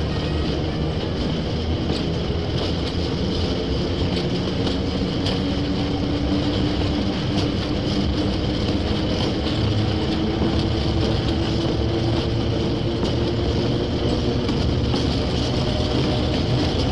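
A train rolling on rails: a steady rumble and hiss with faint scattered clicks and a faint drifting tone.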